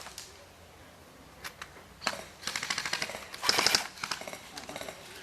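Airsoft guns firing in rapid bursts of clicking shots. A burst starts about two seconds in, a louder, denser one follows around three and a half seconds, then a few scattered shots.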